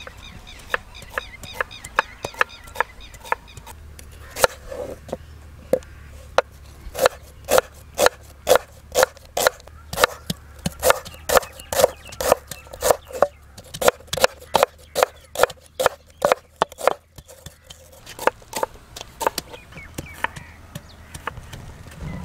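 A knife slicing onion on a wooden chopping board, with a wooden pestle pounding garlic and ginger into paste in a clay mortar: sharp strikes about two a second, loudest and most regular in the middle, thinning to light taps near the end.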